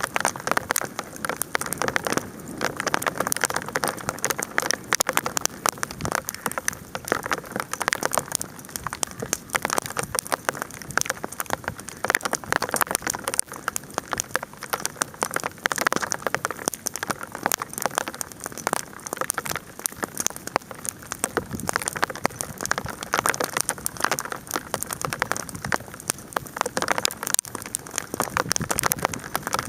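Bonfire burning with a dense, continuous crackling and popping.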